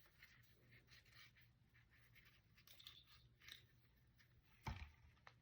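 Near silence with faint, scattered scratching and rustling of small handling noises, and a short soft knock about four and a half seconds in.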